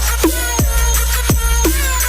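Electronic dance music with a heavy steady bass and repeated falling synth sweeps.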